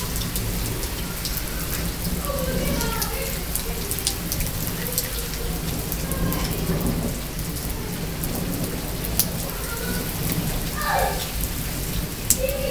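Rain falling steadily, with many close drops ticking sharply on hard surfaces, over a low rumble.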